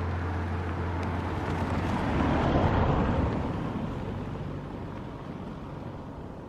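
A car driving past close on a gravel road: tyre and engine noise swelling to a peak about two and a half seconds in, then fading away.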